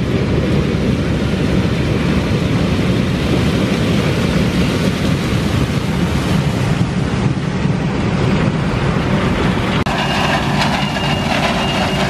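Claas Lexion 740 combine harvester running at work as it harvests corn, a loud, steady, dense mechanical rumble. About ten seconds in the sound changes to a steadier hum with a faint steady whine on top.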